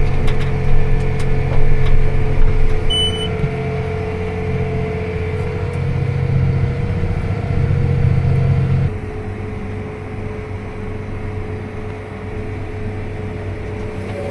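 Tractor engine running steadily while baling, with a steady whine above it and a short high beep about three seconds in. About nine seconds in, the engine hum drops abruptly to a quieter level.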